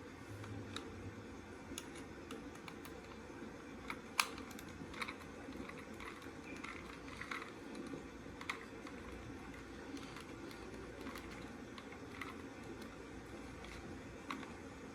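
Irregular light clicks and taps, one every second or so, over a steady low hum.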